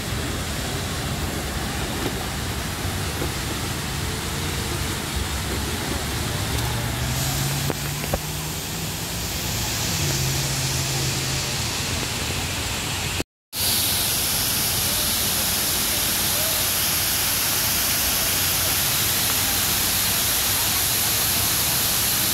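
Artificial waterfall pouring down a steep rock-faced wall: a steady rushing hiss of falling water. It cuts out for a moment about 13 seconds in and comes back a little louder and brighter.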